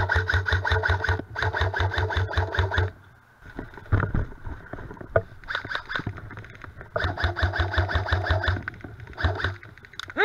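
Airsoft electric gun firing on full auto: a rapid mechanical rattle of about a dozen shots a second. It comes in two long bursts in the first three seconds, scattered single knocks around four to five seconds, then more bursts from about six seconds in, and a brief high shout right at the end.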